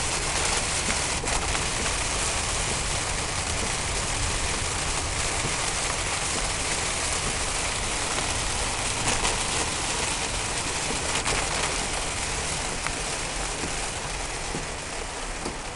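Heavy rain drumming on the roof and windshield of a moving car, heard from inside the cabin, mixed with tyre spray from the flooded road; it eases slightly near the end.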